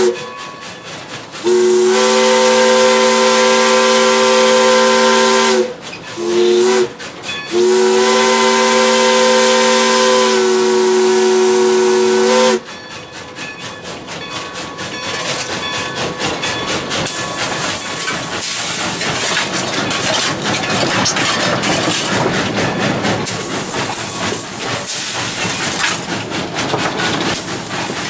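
1909 steam locomotive's chime whistle sounding several notes at once, blown from the cab: the tail of one blast, then a long blast, a short one and another long one, the pattern of a grade-crossing signal. After the last blast the locomotive runs on with loud steam hiss and a rhythmic rattling clatter that builds.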